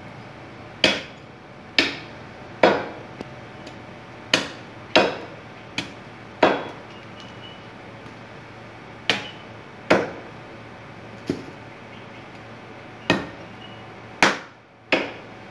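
Cleaver chopping through beef ribs on a thick round wooden chopping block: about a dozen sharp chops at an uneven pace, with a pause of a couple of seconds in the middle.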